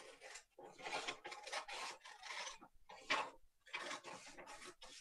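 Scissors cutting a 2-inch strip off a sheet of paper along a pencilled line, a series of short crisp snips about two a second with brief pauses between, the sharpest one about three seconds in.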